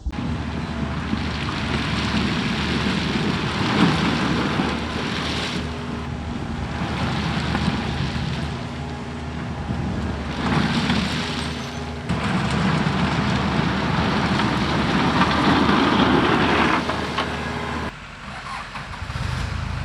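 John Deere compact tractor's diesel engine working under load, pushing gravel, with several louder surges of engine and scraping. It drops back suddenly near the end.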